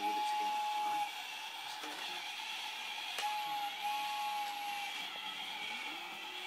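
Toy train set sounding a steady whistle tone twice, once at the start for about a second and again from about three seconds in for nearly two seconds, over a constant running hiss.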